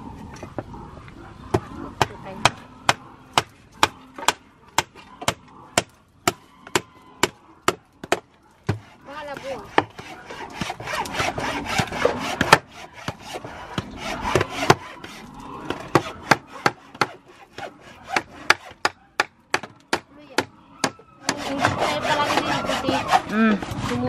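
Rapid, evenly spaced sharp knocks on wood, about two to three a second, from construction work; the knocking stops about 21 seconds in.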